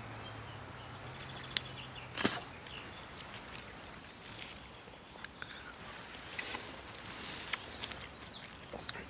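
Small birds chirping in quick repeated high notes, mostly in the second half, over outdoor ambience. Two sharp snaps come about one and a half and two seconds in, and a faint low hum runs through the first few seconds.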